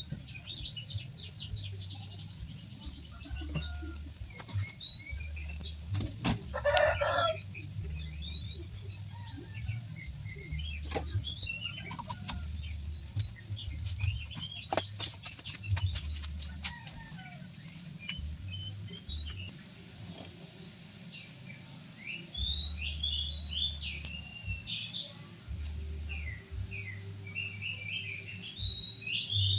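Birds chirping and calling, with many short trills throughout and one louder call about seven seconds in, over a low rumble that comes and goes.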